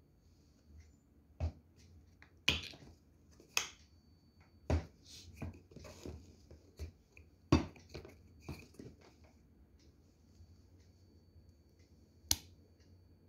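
Irregular sharp clicks and knocks, about half a dozen loud ones with small ticks between, from a metal spoon and a plastic squeeze bottle of mayonnaise handled against a glass bowl.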